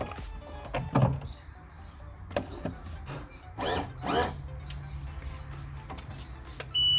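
Scattered clicks and handling knocks, then a low steady hum sets in about four seconds in. Near the end the boat engine's warning alarm gives a short, high, steady beep while the engine fails to start, a fault the crew later put down to a fuel pump that is not running.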